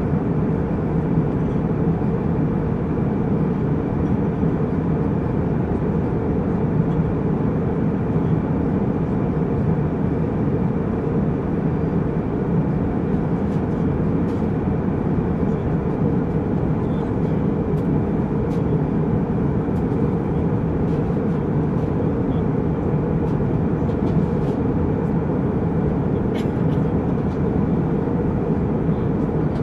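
Jet airliner cabin in flight: a steady, deep rumble of engine and airflow noise, with a few faint ticks.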